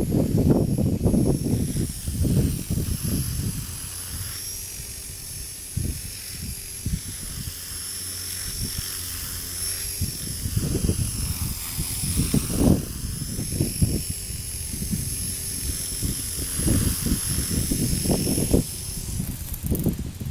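Align T-REX 250 electric RC helicopter's motor and rotor blades whining at a steady high pitch, wavering slightly, and stopping just before the end. Gusts of strong wind buffet the microphone throughout.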